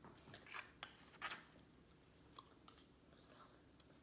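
Faint chewing with a few soft clicks and crunches in the first second and a half, then near silence.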